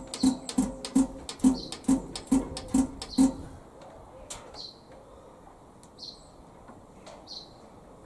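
A hand lever on an Aveling Barford DY road roller's engine being pumped: about nine even metallic clunks, a little over two a second, that stop about three seconds in. A bird chirps several times through the rest.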